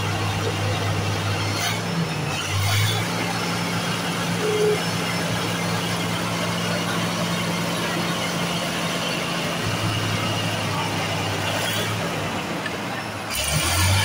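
Komatsu D65P bulldozer's diesel engine running with a steady low drone. Its note shifts in pitch about two and a half seconds in and again near ten seconds, and there are a couple of brief metallic knocks about two seconds in.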